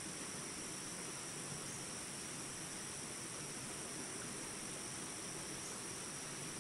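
Steady rush of running water, with a continuous high chirring of insects over it.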